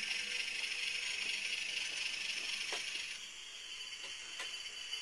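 Onboard sound decoder of an HO-scale Broadway Limited Trackmobile model playing its diesel engine sound through a tiny speaker, thin and hissy, with a few faint clicks.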